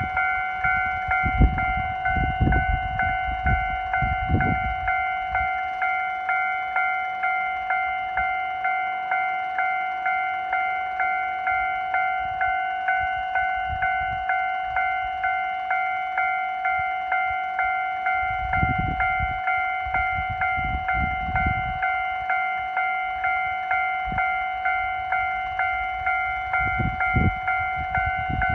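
Japanese level crossing warning bell ringing steadily, an electronic ding repeated a little more than once a second. Low rumbles rise under it near the start and again about two-thirds of the way through.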